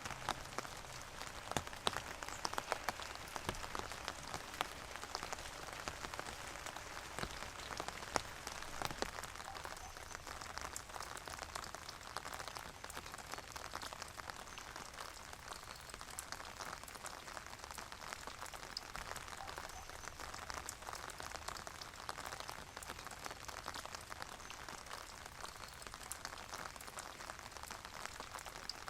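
Steady rain falling, many individual drops ticking and pattering on a hard surface, with a few louder drip hits in the first several seconds.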